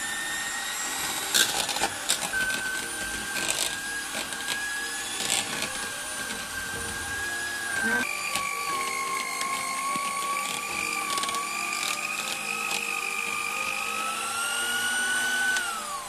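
Electric hand mixer running with a steady whine as its beaters mash boiled banana in a plastic bowl, the beaters knocking against the bowl a few times in the first seconds. About halfway through the motor's pitch drops and settles lower, rises a little near the end, then winds down as it is switched off.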